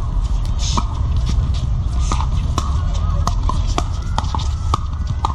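Pickleball paddles striking a plastic pickleball in a quick rally: a string of about a dozen sharp pocks, two to three a second, over a steady low rumble.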